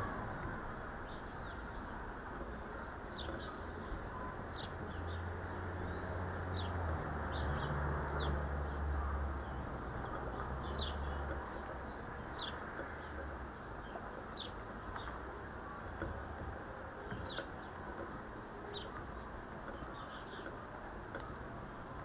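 Small garden birds calling in short, high, down-slurred chirps every second or so, over a steady background hiss. A low hum swells in the middle of the stretch and then fades.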